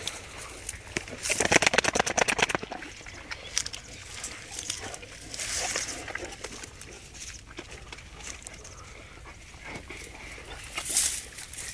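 Great Danes tearing and chewing grass at close range, with a fast run of loud chewing clicks between about one and two and a half seconds in, then softer chewing and grass rustling, and a louder rustle near the end.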